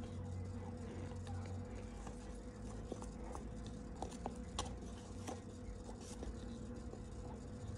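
Raw cornstarch being worked with a plastic spoon in a plastic tub and chewed: irregular small crunches and clicks over a low steady hum.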